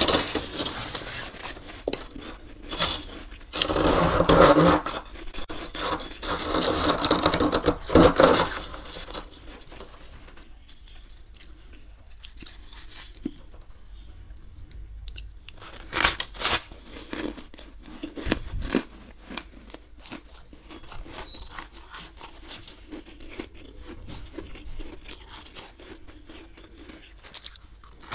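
Metal spoon scraping and scooping soft, thick freezer frost, a grainy, crunchy scrape. It is loud for the first eight seconds or so, then turns quieter, with a few sharper scrapes later on.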